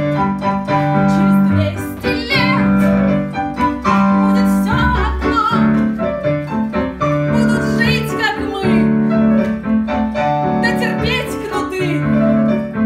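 Piano music with held chords, with a voice coming in a few times on wavering, gliding high notes.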